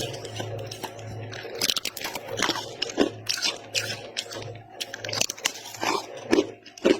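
Freezer frost being bitten and chewed close to the microphone: a quick, irregular series of sharp crunches.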